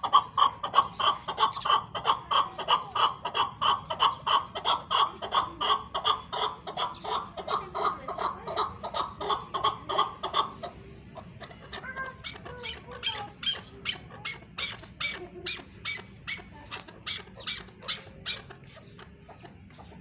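Chukar partridge calling in a fast series of short notes, about three a second. The calls are loud for the first ten seconds, then go on fainter and thinner from about eleven seconds in.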